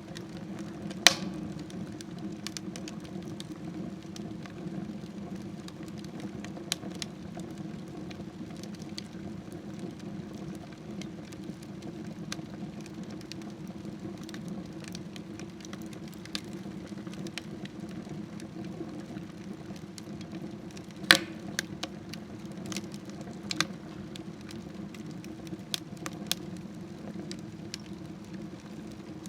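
Wood fire burning in a smokeless wood stove: a steady low rush of flame with scattered crackles and pops, two sharp louder pops about a second in and again about two-thirds of the way through.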